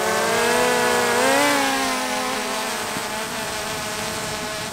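Multirotor fishing drone's propellers whining, the pitch rising and then falling about a second in, then holding steadier and a little quieter as it carries the bait out.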